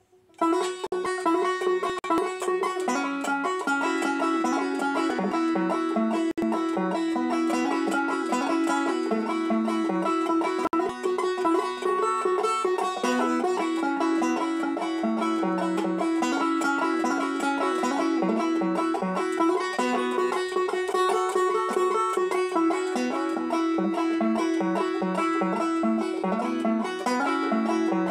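Resonator banjo picked with fingerpicks, played solo: a fast, steady stream of bright plucked notes that starts about half a second in.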